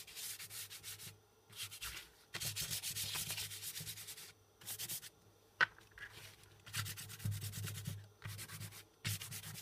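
Chalk pastel held sideways and rubbed back and forth across paper in quick scratchy strokes, coming in several bursts with short pauses between them. One sharp tap sounds a little past halfway.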